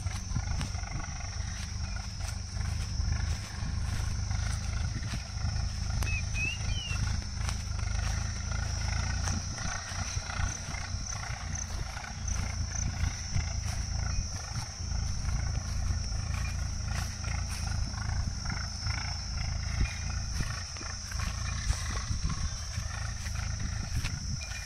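Wind buffeting the microphone in uneven gusts, over a steady high-pitched insect buzz, with a few faint bird chirps about six seconds in.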